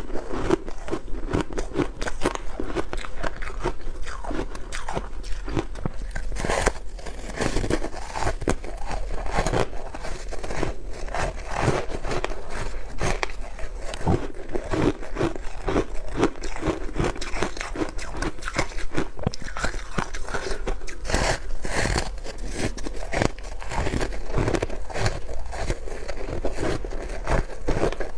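Powdery freezer-frost ice being bitten and chewed: a continuous run of dense, crisp crunches.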